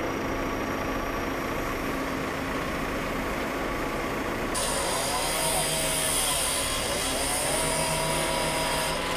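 Machinery running steadily with a low hum, the kind of engine noise heavy vehicles make idling. About halfway in, a higher hiss and a wavering whine join.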